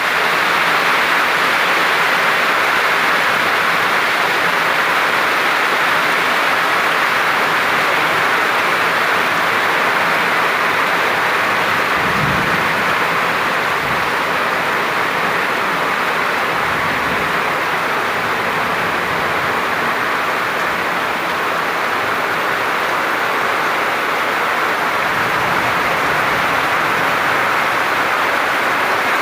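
Steady, heavy rain falling, a dense even hiss, with a few brief low rumbles about twelve seconds in and again near the end.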